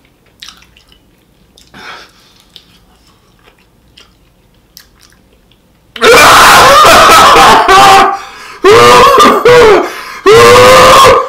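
Faint chewing and small mouth clicks, then about halfway through a man's loud wordless yelling in three long bursts: a pained outcry at the burn of extremely spicy hot chicken.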